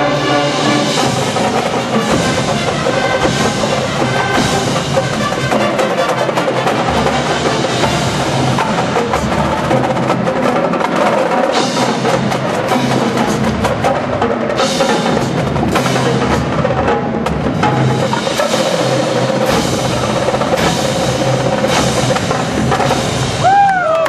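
High-school marching band playing live, percussion to the fore: drumline and front-ensemble percussion with wood block and drums. Near the end there is a short falling whistle-like glide.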